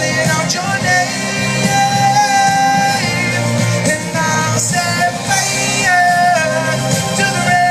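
A male voice sings a pop ballad live over loud backing music, holding long notes.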